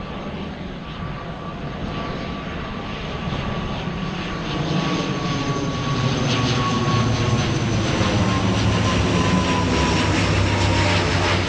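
Airplane flying low overhead: engine noise growing steadily louder as it approaches, with a rumble building underneath and a steady whine that slides down in pitch in the later seconds as it passes.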